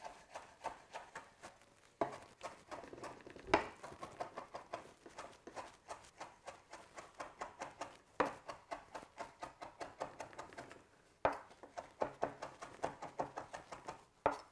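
Chef's knife rapidly chopping fresh mint and cilantro on a wooden cutting board: quick knife taps against the board, about five or six a second, in several runs with short pauses between, each run starting with a harder strike.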